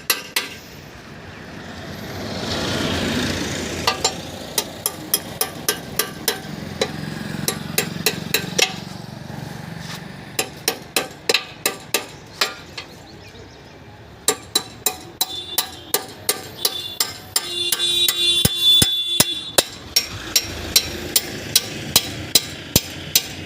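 Hammer blows on metal during motorcycle tyre work, coming in runs of sharp knocks at about two to three a second with short pauses between runs.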